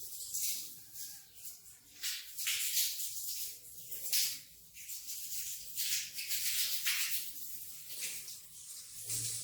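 Wet rug being scrubbed in repeated strokes: a series of hissing swishes, roughly one a second and uneven in spacing.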